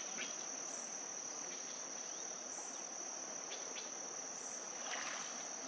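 Insects trilling: one continuous, steady, high-pitched note, with a few faint brief sounds over it, the clearest about five seconds in.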